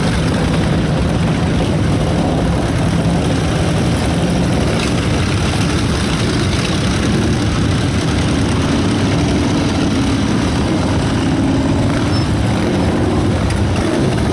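Motorcycle and other vehicle engines running steadily as a line of vehicles rolls past at low speed, a continuous low drone.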